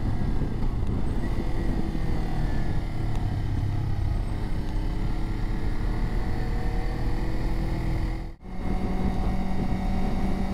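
Motorcycle engine running under riding wind noise, its note sliding up and down with the revs. It cuts out abruptly about eight seconds in and comes back at once with a steadier engine note.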